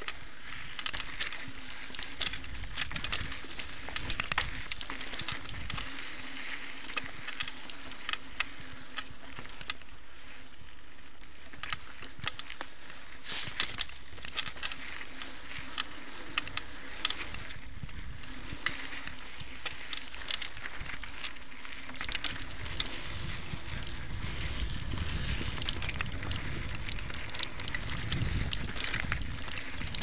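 Mountain bike rolling fast over a dirt and gravel trail: steady tyre noise with frequent sharp clicks and rattles from the bike over bumps. Wind noise on the microphone grows over the last several seconds.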